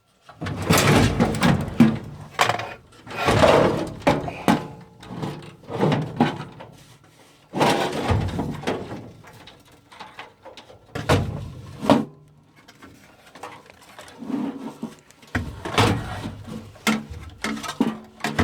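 Irregular clanks, scrapes and knocks of a gas furnace's cabinet and blower assembly being handled as the blower is pulled out.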